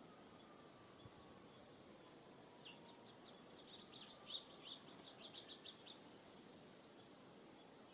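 Wild songbird chirping: a quick run of short, high, sharp notes for about three seconds in the middle, over an otherwise quiet outdoor background.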